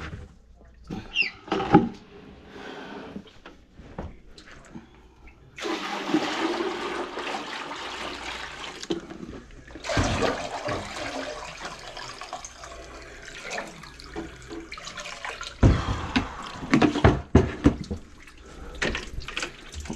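Dirty drain water rushing and sloshing in a plastic bucket, starting about six seconds in, with knocks from the bucket being handled.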